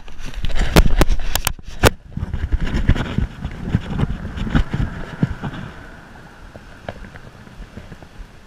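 Sharp knocks and rubbing from the handheld, head-level camera being handled for the first couple of seconds. Then a low rumble of water sloshing and wind around the angler's hands and the landed flounder, which grows quieter from about five seconds in.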